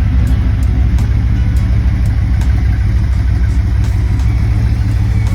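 Pickup truck's engine running steadily: a loud, even low drone.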